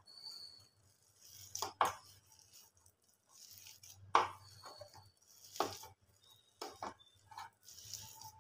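Hands kneading a wet pakora batter of grated potato, gram flour and rice flour in a stainless steel bowl, with several sharp knocks against the bowl.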